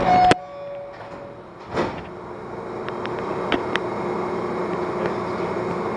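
Metro train running through a tunnel, heard from the front of the car. Its rumble grows louder over the first couple of seconds and then holds steady with a faint whine. There is a sharp click right at the start and a few light clicks a few seconds in.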